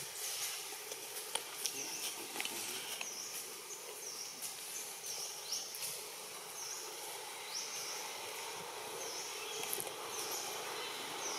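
Outdoor ambience with a short, high chirp repeating a little faster than once a second, and scattered small clicks.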